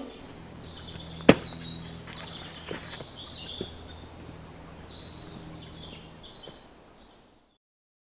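Woodland ambience with small birds chirping, a sharp crack about a second in and a few lighter knocks, fading out near the end.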